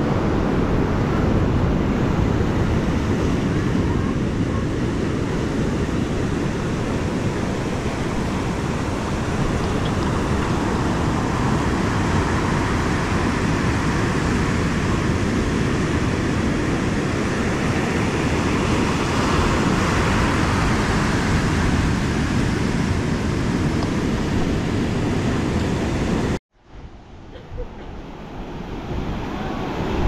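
Black Sea storm surf breaking on the shore, a steady rush of waves with wind buffeting the microphone. About three-quarters of the way through the sound cuts out abruptly for a moment, then comes back quieter and builds up again.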